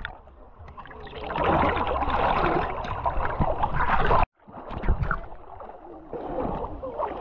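River water splashing and rushing close by. It cuts off suddenly about four seconds in, then fainter water sounds follow.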